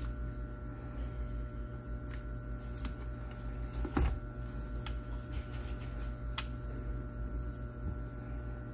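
Steady low hum with a faint steady whine, broken by a few scattered sharp clicks; the loudest click comes about four seconds in.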